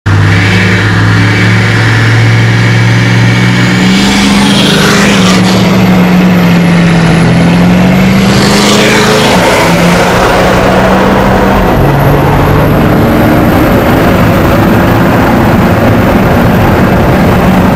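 12-valve Cummins inline-six diesel at full throttle, heard from inside the cab, accelerating hard through the gears with the engine note stepping several times. A high turbo whistle climbs over the first five seconds and then holds.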